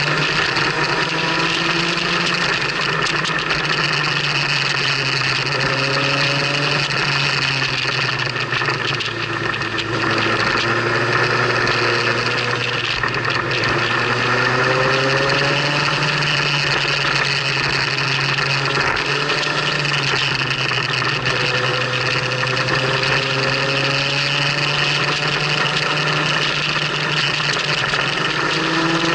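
Motorcycle engine running at road speed under heavy wind and road noise, its pitch climbing several times.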